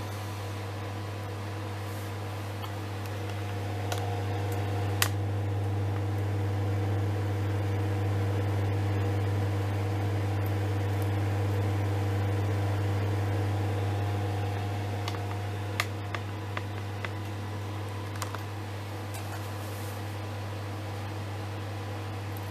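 Microwave oven running with a steady low hum that swells slightly in the middle. A few sharp clicks sound about four to five seconds in and again around sixteen to eighteen seconds.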